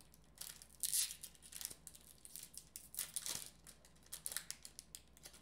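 A trading card booster pack wrapper being torn and worked open by hand: a series of short crinkling, tearing rustles, the loudest about a second in and about three seconds in.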